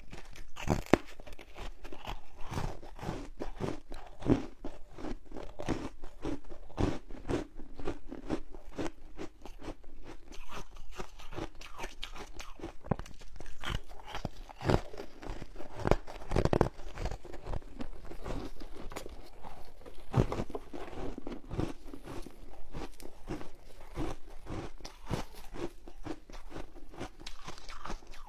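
Close-miked biting and chewing of foam ice coated in passion fruit pulp: irregular, sharp crunches throughout as the frozen blocks break between the teeth.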